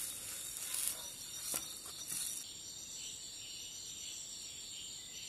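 A faint pan sizzle with a couple of sharp spatula scrapes on the frying pan, then, from about two seconds in, a steady chorus of crickets chirping.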